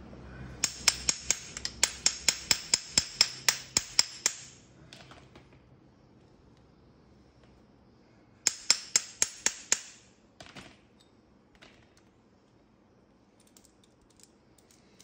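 Quick, even metallic clicking from a hand tool being worked on copper pipe, about four or five clicks a second, in two runs: a long one, then a shorter one after a pause of about four seconds. The tool is most likely the tube expander used to widen the pipe end so another pipe slides inside for brazing.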